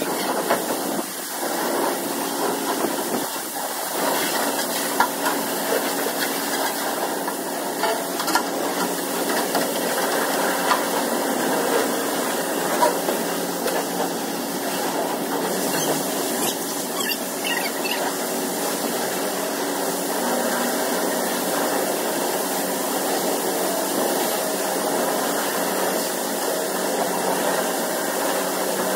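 Pressure washer spraying water in a steady hiss, over the even hum of its pump.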